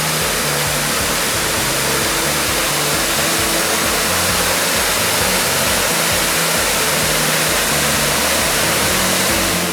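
Waterfall pouring, a loud, steady rush of falling water, with background music's low notes underneath.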